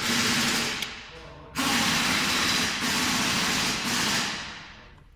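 Electric radiator cooling fan running with a steady rush and faint hum. The sound drops away about a second in, comes straight back about half a second later, then winds down near the end. The fan is working again on a new 30 A fuse after losing power to a failed speed-control resistor.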